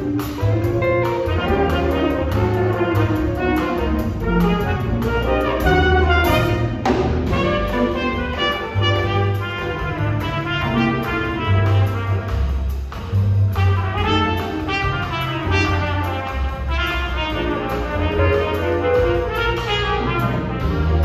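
Small jazz combo playing: trumpet, saxophone and trombone carry the melody over upright bass, piano and a drum kit keeping time.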